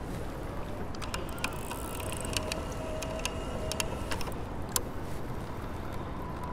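Steady rush of river current and outdoor noise around an anchored boat, with scattered sharp clicks and taps as fishing rods and reels are handled and set into rod holders.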